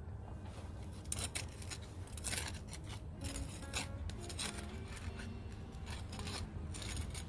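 Hand gardening tool scraping and cutting through moss and soil in an irregular series of short rasping strokes.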